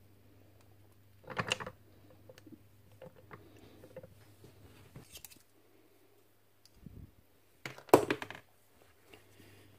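Metal internal parts of a DeWalt breaker hammer being handled and set down on a workbench: two short clattering rattles, about a second and a half in and again near eight seconds (the louder one), with small clicks between. A faint steady low hum sits underneath.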